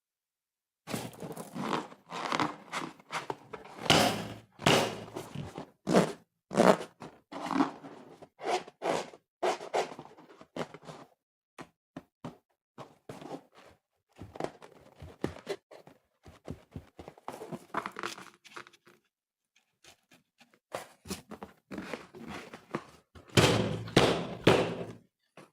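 Irregular run of short squelches, taps and thuds from hands squeezing and handling slime and balloons, pausing briefly a little past two-thirds of the way and bunching up again near the end.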